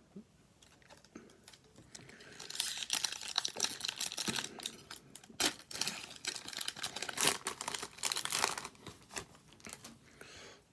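Plastic-foil wrapper of a hockey card pack being torn open and crinkled, a dense run of crackles and sharp clicks lasting several seconds.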